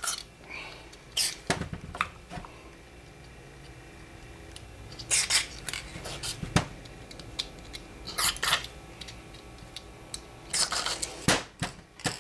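Small clicks, taps and scrapes from a carburetor off a Johnson 15 hp outboard being handled and its moving parts worked by hand after oiling. A few louder, brief rasps come about 5 s in, about 8 s in, and again near the end.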